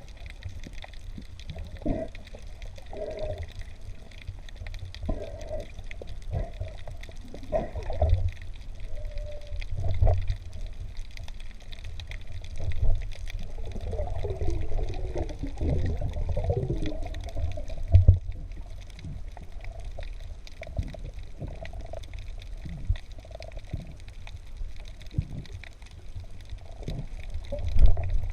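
Sea water sloshing and gurgling around the camera, with a stretch of bubbling about halfway through and a few dull knocks.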